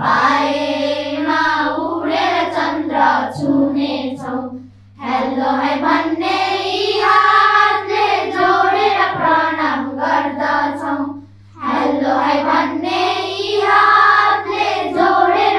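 A group of children singing a song together in unison, in phrases with short breaks about 5 and 11.5 seconds in, over a steady low electrical hum.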